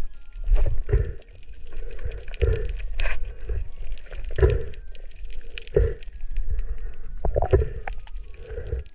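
Muffled underwater sound of water moving against the camera, with irregular low knocks and thuds and some crackle as the diver moves about.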